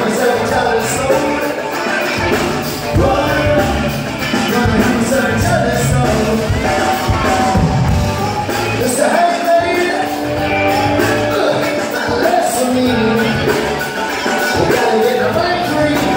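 A live reggae band playing with a steady beat, a lead singer and backing vocalists singing over drums, guitar and percussion.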